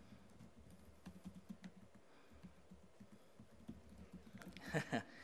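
Quiet typing on a computer keyboard, an irregular run of soft key clicks, with a short falling vocal sound just before the end.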